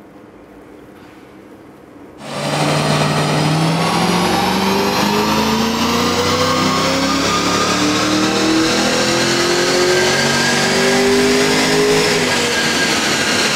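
HSV GTS's naturally aspirated 6.2-litre V8 making a full-throttle power run on a chassis dyno. It starts abruptly about two seconds in and climbs steadily in pitch for about ten seconds, then dips slightly near the end.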